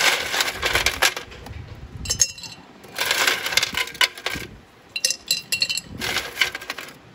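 Dishes and kitchen utensils clinking and rattling in about five bursts of handling.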